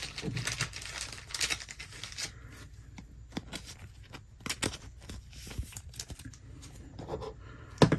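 Trading cards being handled and flipped through by hand, with irregular soft scrapes of card stock sliding over card stock and small sharp clicks and snaps.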